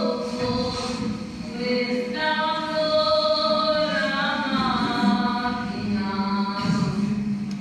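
A group of voices singing together in long held notes that glide from one pitch to the next.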